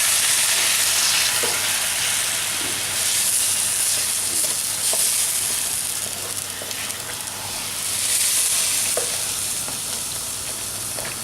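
Browned mince and passata sizzling in a hot pan while being stirred. The hiss swells and fades in slow waves, with light clicks of the spoon against the pan.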